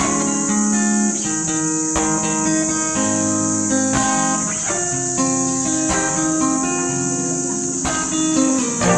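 Acoustic guitar music, picked notes following one another steadily, over a constant high-pitched chirring of crickets.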